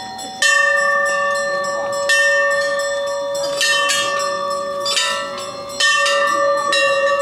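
Hanging brass temple bells rung by hand, about five strikes, each one ringing on so that the tones overlap into a continuous metallic ring.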